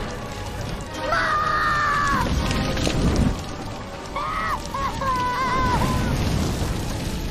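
Film soundtrack of a wooden treehouse burning, with a low rumble of fire under music. There are two stretches of high, wavering cry-like tones, about a second in and again at about four seconds.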